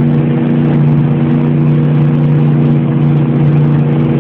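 Motorboat engine running underway at a steady pitch, with a steady rushing noise over it.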